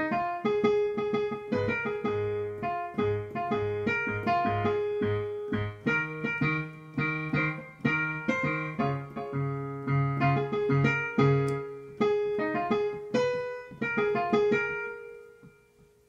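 Yamaha digital piano playing a rhythmic accompaniment of chords over a bass line, ending on a held chord that fades out near the end.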